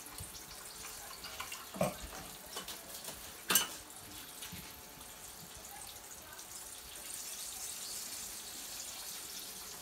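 Turkey chops frying in oil in a pan, a steady sizzling hiss. A sharp knock about three and a half seconds in as a glass is set down on the counter, with a fainter knock a little before it.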